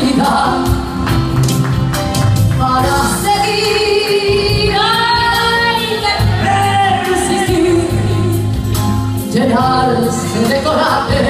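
A woman singing into a microphone over instrumental accompaniment, holding long notes with a wavering vibrato.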